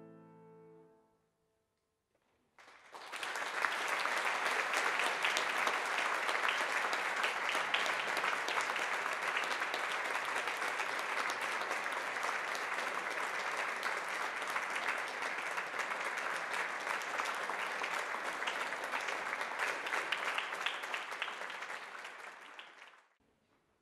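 The last notes of the music die away, and after a brief silence a concert audience applauds steadily for about twenty seconds, tapering off near the end.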